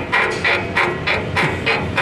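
Rapid rhythmic creaking, about three strokes a second, from a Toyota Fortuner's front shock absorber as it is worked by hand: the squeak of its worn, broken lower bush.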